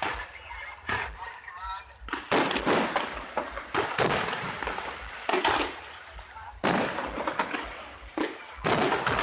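Fireworks display: aerial shells bursting in a string of loud bangs, roughly every one to two seconds, each with a trailing echo.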